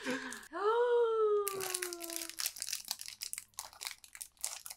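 A foil-lined snack-bar wrapper being torn and crinkled open by hand, in a dense run of crackles. About half a second in, a voice holds one note that slides slowly downward for about two seconds over the crinkling.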